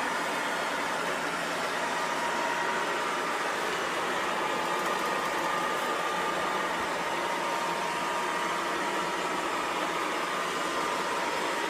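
Haier robot vacuum cleaner running: a steady whirring hiss from its suction fan and brushes, with a faint steady whine on top.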